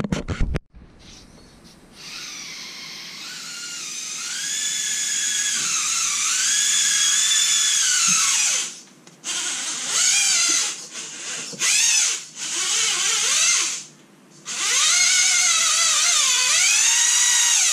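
Electric drive motor and gear train of an Axial Capra 1.9 RC rock crawler whining under throttle, the pitch rising and falling with speed: a long run, several short blips, then another long run. A loud knock at the very start.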